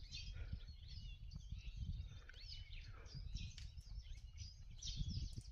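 Wild birds chirping and calling, many short high calls overlapping, over a low steady rumble.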